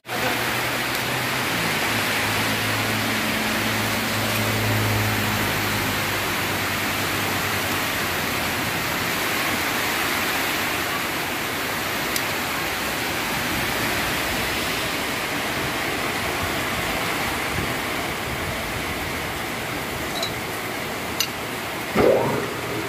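Steady hiss of rain. A low hum runs under it for the first several seconds, and there is a single knock near the end.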